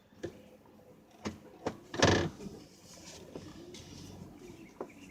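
A few sharp clicks and knocks inside a car, with a louder short scraping thump about two seconds in, over a faint steady engine hum.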